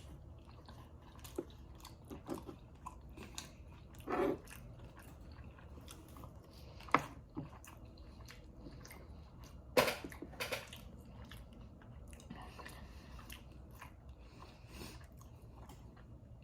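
A person chewing food close to the microphone, with scattered wet mouth clicks and smacks; a few sharper smacks stand out about seven and ten seconds in.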